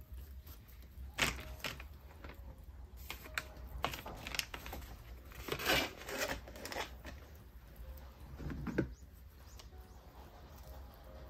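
Hands handling materials on a tabletop: a run of brief rustles, crinkles and light knocks, busiest about four to seven seconds in, over a steady low hum.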